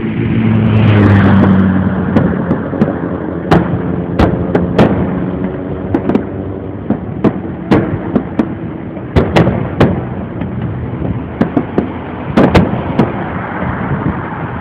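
Fireworks shells bursting in an irregular series of sharp bangs, about one or two a second, over a steady rumble. A loud pitched sound swells and falls away in the first two seconds.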